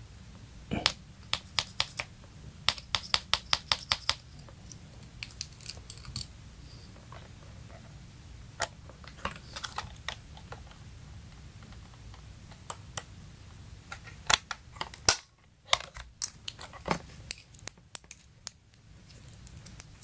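Light clicks and taps from handling a handheld digital multimeter and its test leads, coming singly and in quick runs of several at a time.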